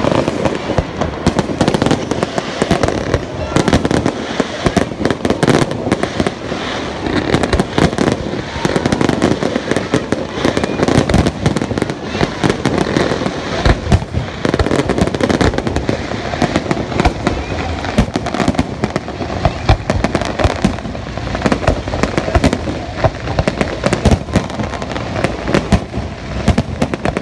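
Aerial fireworks display: a dense, continuous run of shell bursts, bangs and crackles, many close together, with no let-up.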